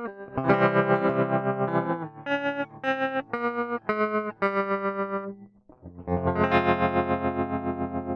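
Electric guitar played through effects pedals: a run of short, separate notes and chords, a brief gap, then a chord struck about six seconds in that rings on and slowly fades with a wavering level.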